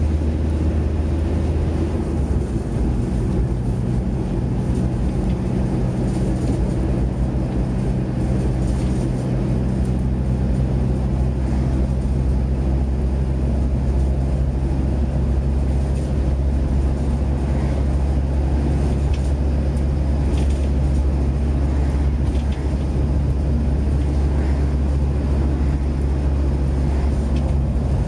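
Cab interior of a VW T4 Transporter van on the move: steady engine drone and road noise, with rattles from the van. The engine note shifts a couple of times in the first ten seconds.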